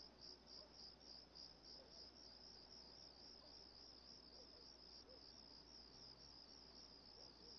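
Faint, steady chirping of crickets, a high-pitched pulse repeating about four times a second.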